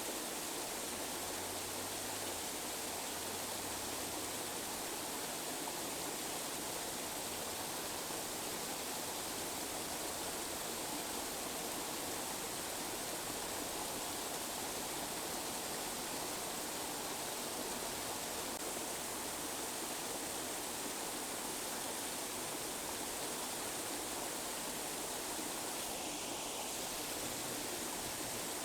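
Steady, even rushing noise with no deep rumble, played continuously as a tinnitus masker.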